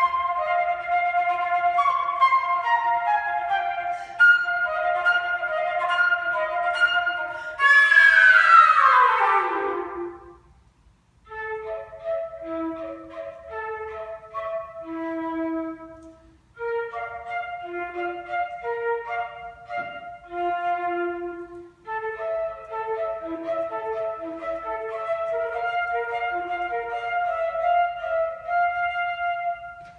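Solo flute playing. Held notes give way about eight seconds in to a loud falling glide with a breathy rush. After a short break come quick, short detached notes with brief pauses between phrases.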